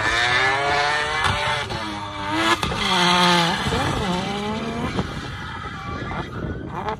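Drift car sliding sideways with its rear tyres spinning and smoking: the engine revs fall and climb again several times as the throttle is worked, over the hiss and squeal of the tyres. The sound fades in the second half as the car moves away.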